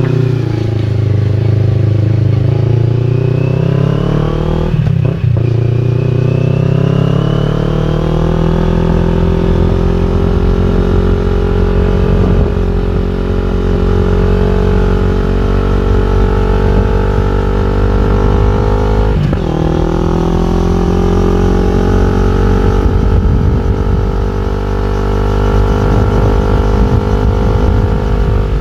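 CFMOTO NK400 parallel-twin engine breathing through an Akrapovic full exhaust system, pulling up through the revs while riding, with quick upshifts about five seconds in and again near twenty seconds, each a brief break followed by a drop in pitch and a fresh climb before settling to a steady cruise.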